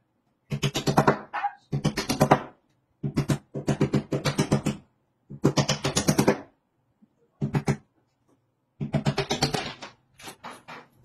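Hammer tapping at the wall in quick runs of strikes, about seven a second, in several short bursts with pauses between.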